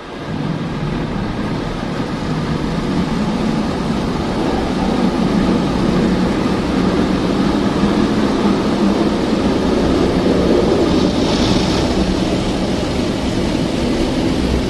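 Automatic car wash running over the car, heard from inside the cabin: a steady machine hum with water spraying against the windshield. It starts abruptly, and the spray turns louder and hissier for a moment about eleven seconds in.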